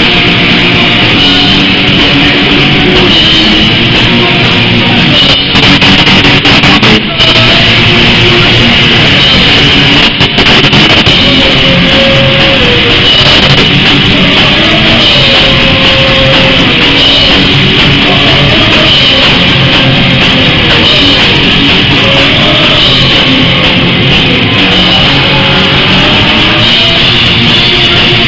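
Rock band playing live, with guitar and drum kit, very loud. The recording drops out for an instant a few times about five to ten seconds in.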